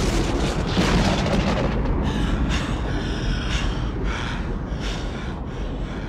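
Film sound effect of the alien reactor erupting through a mountain: a heavy, continuous low rumble with dense crackling in the first two seconds. From about two seconds in it is joined by a string of short, high, strained sounds.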